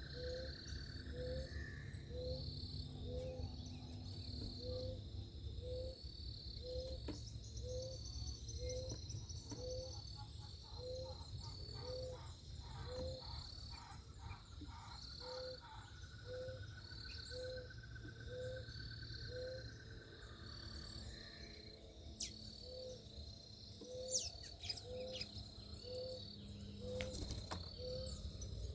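Backyard birdsong and insect chirring. A short low note repeats about once a second throughout, while high insect pulses run steadily underneath. Several bird trills and quick chirps come and go, with sharper calls in the second half.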